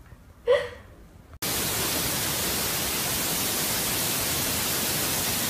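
Steady hiss like static, cutting in abruptly about a second and a half in and holding level; before it, one short faint sound about half a second in.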